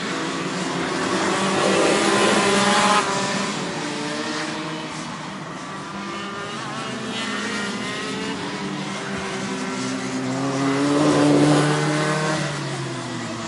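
Racing engines revving up and down as they pass, swelling loudest around two to three seconds in and again near eleven seconds. The sound drops off abruptly about three seconds in.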